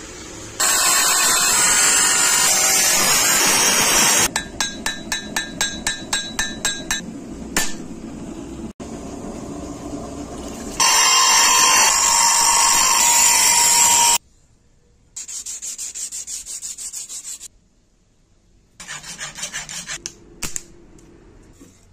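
Knife-blade hand work in quick cuts: a loud steady abrasive rush of steel being sanded, then a run of back-and-forth rubbing strokes, about four a second. A second loud rush follows, then shorter bursts of the same quick strokes.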